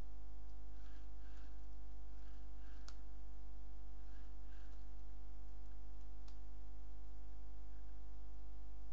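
Steady electrical mains hum with a stack of overtones, picked up by the recording setup. A couple of faint keyboard clicks come through, about three and six seconds in.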